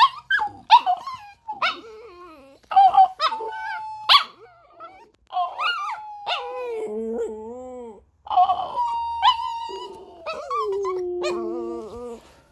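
A dog howling: a string of short, yelping calls, then long drawn-out howls that waver and slide down in pitch.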